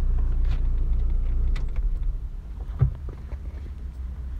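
Small plastic clicks and a thump from a car wiring connector being opened and handled by hand, over a low steady rumble. The thump about three seconds in is the loudest sound.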